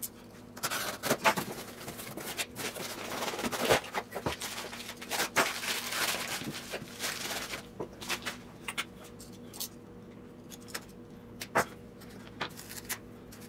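Cardboard shipping box being opened by hand: a run of rustling and tearing of cardboard and packing with many sharp crackles for about seven seconds, then quieter handling with a few scattered light clicks and taps.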